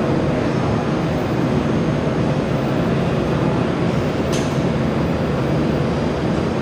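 Jewelry laser welding machine running with a steady, loud mechanical hum and rumble, with one sharp click about four seconds in.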